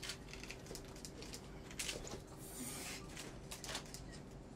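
Scattered light clicks and scuffs in a quiet small room, with a brief hiss about two and a half seconds in.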